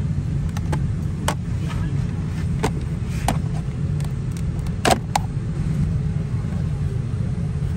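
Steady low rumble of a parked Boeing 787-9's cabin air system, with scattered sharp clicks and knocks in the cabin. The loudest knock comes about five seconds in.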